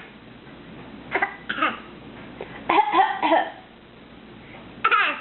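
A small child giving short, playful copycat coughs in three bouts, about one, three and five seconds in.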